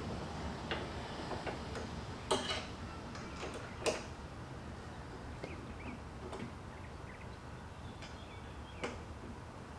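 Allen wrench tightening screws on a bedslide rail bracket: a handful of light metal clicks and ticks a second or more apart, the clearest about two and four seconds in, over a low steady hum.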